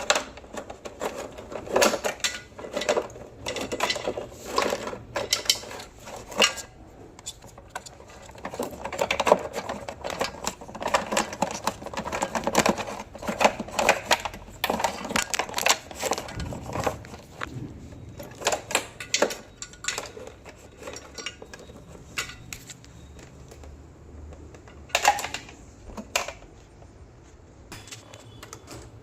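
Irregular clicking and clattering of tools and small metal parts being handled during repair work, busy at first and sparser in the second half.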